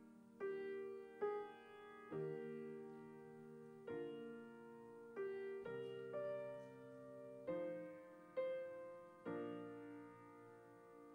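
Slow, quiet piano playing: chords struck every second or so, each ringing on and fading before the next.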